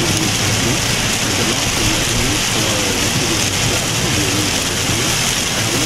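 Heavy rain beating on a moving car's roof and windshield, heard from inside the cabin as a loud, steady hiss.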